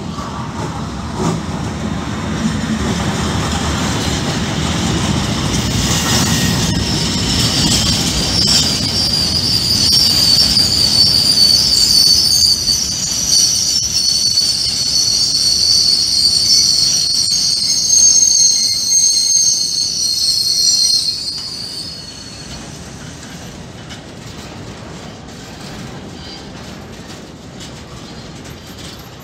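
A freight train hauled by an E.494 (Traxx) electric locomotive passes close by, then a long rake of loaded hopper wagons rolls past. The wheels give a loud, steady high squeal from about a third of the way in until about three quarters through, after which the wagons roll on more quietly.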